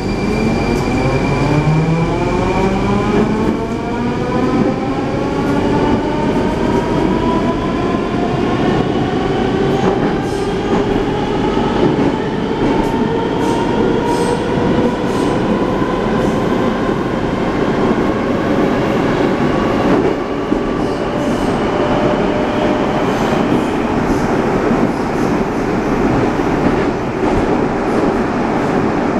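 Rusich 81-740/741 metro train accelerating, heard from inside the car. The traction drive's whine climbs in pitch through several tones for about twenty seconds, then levels off and fades into steady wheel-and-rail rumble.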